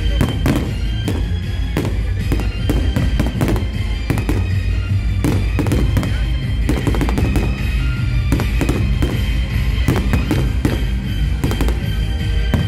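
Aerial firework shells bursting in quick succession, sharp bangs over and over, with loud music playing throughout.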